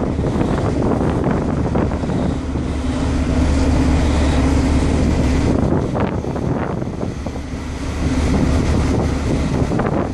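Wind buffeting the microphone on the deck of a large ship under way, over the ship's steady low hum.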